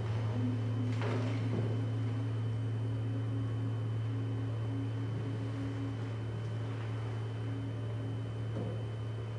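Live electronic drone music: a steady low hum with a fainter held tone above it that fades in and out, and a brief rush of noise about a second in.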